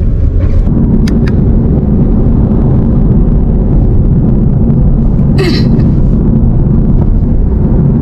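Steady low rumble of road noise inside the cabin of a moving VinFast taxi, with a short hiss about five and a half seconds in.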